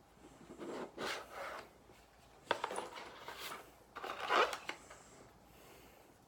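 Packaging rustled and handled in short bursts as a wand pen is unwrapped, with one sharp click about halfway through.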